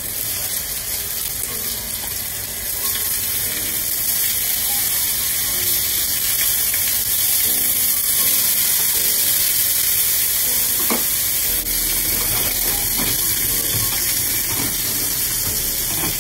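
Beef steaks sizzling in avocado oil in a hot frying pan and a ridged cast-iron grill pan: a steady hiss that grows louder a few seconds in as the steaks are turned over with tongs. A few light clicks of the metal tongs.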